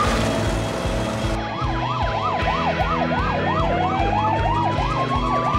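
Police car sirens. A fast yelp siren warbles about three times a second, starting about a second and a half in, and a second siren joins with a slow wail rising in pitch.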